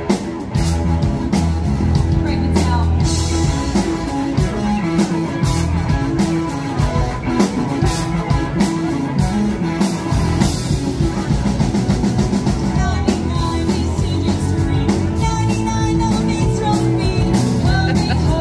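Live rock band playing: drum kit keeping a steady beat under electric guitar, with a singer.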